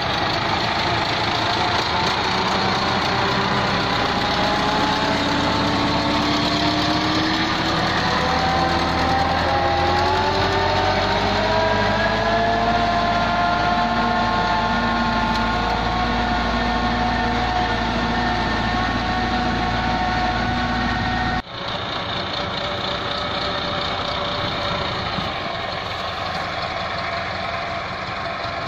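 IMT 577 tractor's diesel engine working under load as it drags a rear scraper blade (karaha) through soil and dung. Its note climbs over several seconds, then holds steady. It breaks off abruptly about three-quarters of the way through and carries on slightly quieter.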